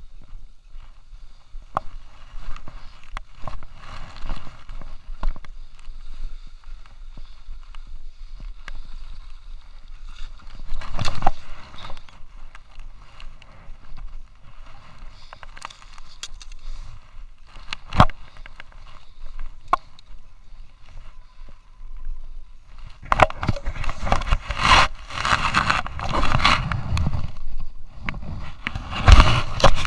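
Skis sliding and scraping over packed snow, with scattered sharp clicks and knocks. The scraping grows louder and denser in the last seven seconds or so.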